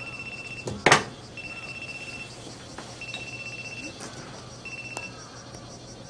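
Telephone ringing: a trilling electronic ring, about a second on and under a second off, four rings, the last cut short when it is picked up. A loud thump about a second in.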